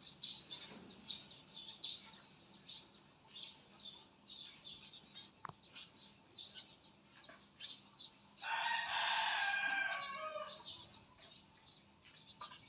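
A rooster crows once, about eight seconds in: a call of about two seconds that drops in pitch at the end and is the loudest sound here. Quick, high, faint ticks and chirps come and go throughout.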